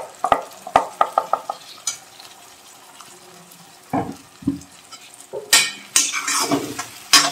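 A metal spatula clinks rapidly against a steel mixer jar and the kadhai while ground spice paste is scraped out. Faint sizzling follows. Near the end the spatula scrapes loudly around the metal kadhai as the paste is stirred into the frying onion and tomato, ending with a sharp clink.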